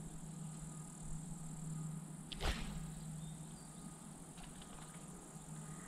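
A spinning rod swished through the air in one quick cast about two and a half seconds in.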